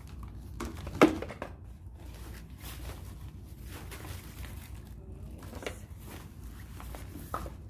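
Vacuum cleaner parts and packaging being handled during assembly: rustling and small clicks, with one sharp knock about a second in, over a low steady hum.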